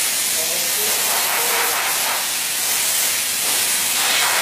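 CNC wood router running: a steady, loud hiss from the spindle and cutting bit, swelling slightly a few times.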